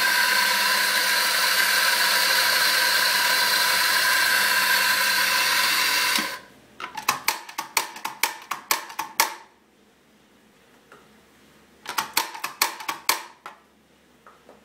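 Doser-chamber espresso coffee grinder running steadily, purging the old grounds after being set finer, and switched off about six seconds in. Then come two runs of rapid clacking from the doser lever being flicked to empty the chamber.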